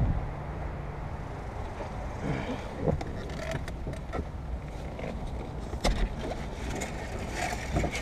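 Scattered light clicks and short scrapes over a steady low rumble.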